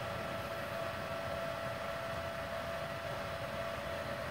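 Steady hum and whir of a switched-on, idling MultiPro Solid 125 A-ST IGBT inverter welder's cooling fan, with a few steady tones over a hiss.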